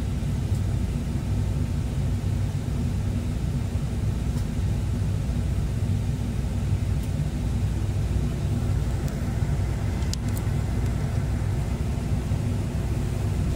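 Excavator's diesel engine running steadily at a constant speed, heard from inside the operator's cab.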